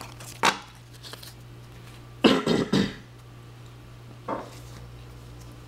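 A person coughing: a short cough about half a second in, then a louder double cough a couple of seconds in and a lighter one later, over a steady low hum.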